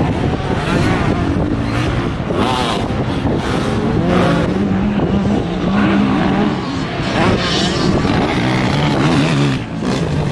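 Off-road racing engines on a motocross track, a quad bike among them, revving up and easing off over and over, more than one at a time.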